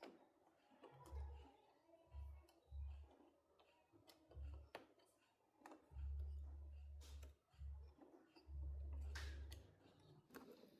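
Faint handling noise: scattered light clicks and several short low thumps.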